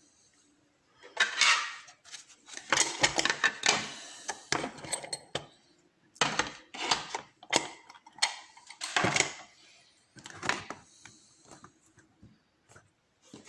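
Small metal lock parts and tools clicking and rattling in irregular bursts as a just-picked challenge lock is handled.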